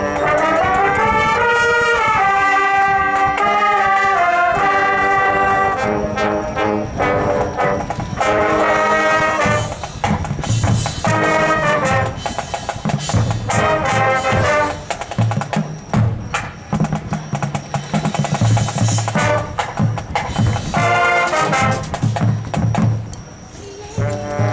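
High school marching band playing its show: sustained brass melody with drums, then from about ten seconds in, short brass stabs over low drum hits.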